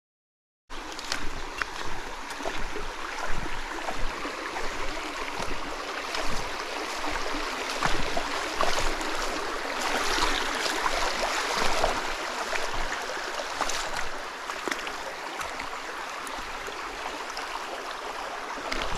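Mountain stream running: a steady wash of flowing water, cutting in abruptly just under a second in, with scattered faint ticks.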